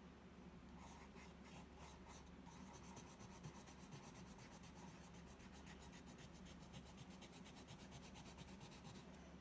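Colored pencil shading on sketchbook paper: faint, quick back-and-forth scratching strokes that start about a second in and stop just before the end.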